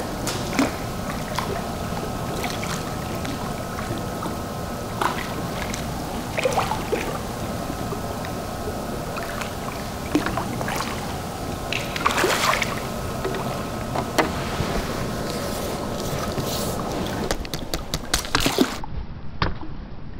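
A hooked fish splashing and thrashing at the surface as it is played on the line, over a steady rush of churning pond water. Near the end, quicker splashes come as it is scooped into the landing net.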